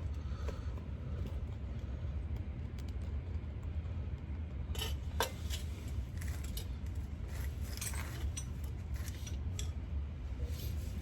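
Hand tools clinking against metal in scattered light clicks and jingles while the last rack-and-pinion mounting bolt is tightened, over a steady low rumble.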